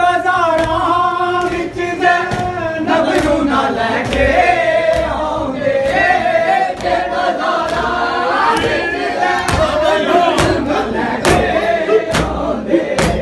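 A group of men chanting a Shia mourning lament (noha) together, kept in time by open-handed slaps on their chests (matam) in a steady beat that grows heavier near the end.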